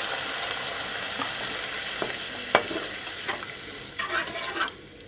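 Masala gravy sizzling in a hot pan just after water has been poured in, the hiss slowly dying down, with a spoon knocking against the pan several times as it is stirred, the sharpest knock about two and a half seconds in. The sizzle drops away almost a second before the end.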